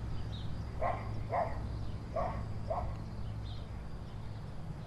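Faint dog barking: four short barks in two pairs, with a couple of thin bird chirps over a steady low hum.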